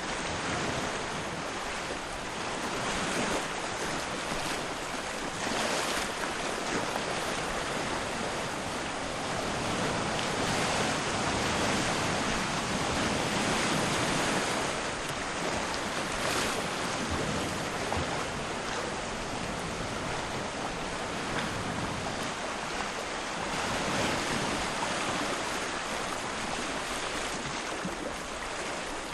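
Sea waves at low tide washing onto the shore in a continuous hiss that swells and eases every few seconds.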